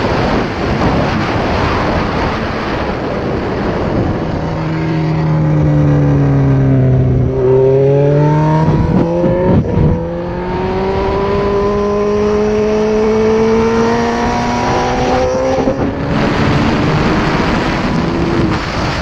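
Suzuki GSX-R1000 K6 inline-four engine heard from the rider's helmet under heavy wind rush. The revs fall for a few seconds, with a few sharp pops and blips as they bottom out. The engine then pulls steadily up through the revs and breaks off briefly near the end, as at a gear change.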